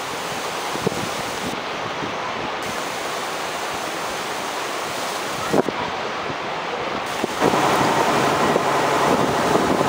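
Floodwater rushing through a swollen river in torrent, a steady roar of churning water with wind on the microphone. About seven seconds in the noise gets louder and a steady low hum joins it.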